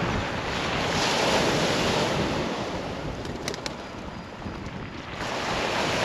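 Small waves washing onto a pebble beach on a sea that has calmed after a storm: a steady rush of surf that swells in the first second or so, eases off through the middle and builds again near the end. Wind buffets the microphone, and a few faint ticks sound about halfway through.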